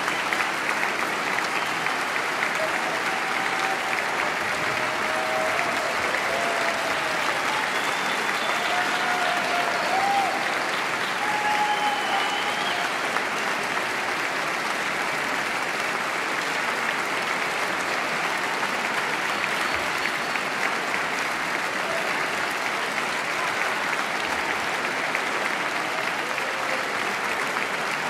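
Concert audience applauding steadily, with a few scattered cheering voices in the first half.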